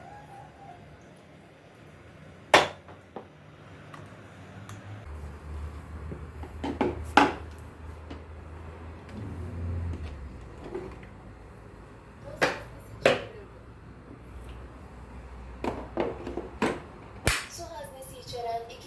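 Irregular sharp clicks and knocks of hard objects being handled, about nine in all, with a low hum for several seconds in the middle.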